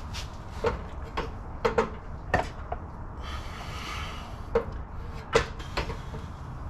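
Irregular sharp knocks and clunks, about nine of them, from tools and parts being handled, with a short scraping slide in the middle.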